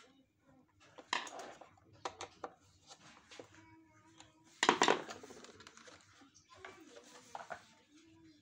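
Hard plastic parts of a Samsung canister vacuum cleaner clicking and clattering as it is taken apart with a screwdriver, with a louder clatter about five seconds in.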